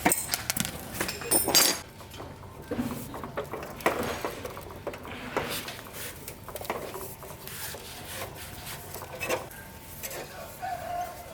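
Irregular metal clinks, knocks and scrapes from hand work on bicycle parts, busiest in the first two seconds and then sparser.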